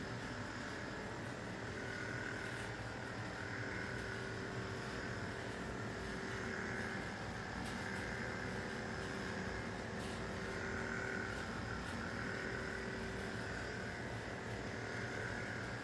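Steady background hum and hiss of a room, with a faint constant tone and no distinct events.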